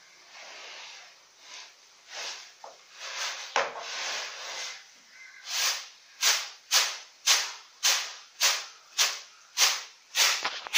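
A fingertip scraping strokes through a layer of dry rice bran, each stroke a short gritty swish. The swishes are sparse and uneven at first, then come about ten in a row, roughly two a second, in the second half.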